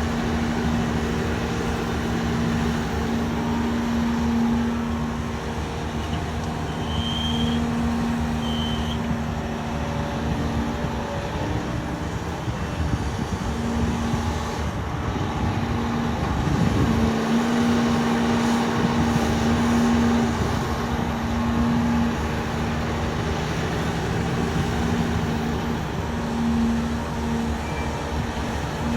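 Large mining excavator's diesel engines running steadily under load, a continuous rumble with a droning hum that fades and returns several times.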